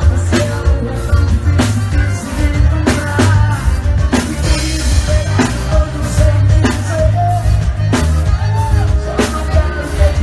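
Live forró band playing at full volume, with a steady drum beat over heavy bass, a melody line and singing.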